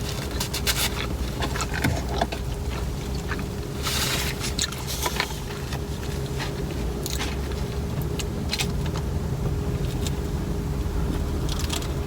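Close-up chewing and eating sounds with scattered small clicks, over the steady low hum of a car running while parked.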